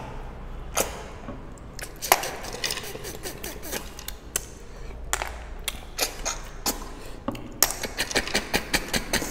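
Snails being eaten from their shells: irregular sharp clicks of hard snail shells knocking against ceramic bowls, mixed with short wet sucking sounds as the meat is sucked out. A quick run of clicks comes near the end.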